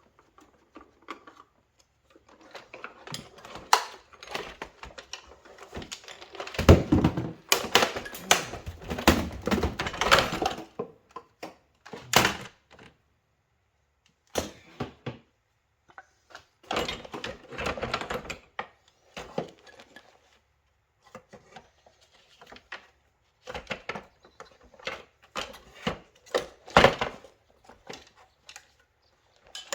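A Sharp vacuum cleaner's plastic housing and parts being handled and taken apart by hand, giving irregular runs of clicks, knocks and rattles separated by short pauses.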